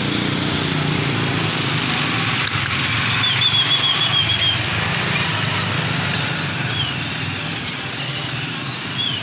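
A caged pelanduk semak babbler gives a quick run of about eight high chirping notes a few seconds in, then single short notes later, over a steady low rumble of motor traffic.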